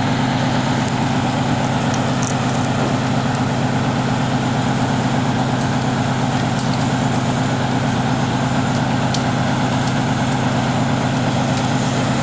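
Heavy diesel truck engines running steadily at constant revs, a deep even drone that does not change.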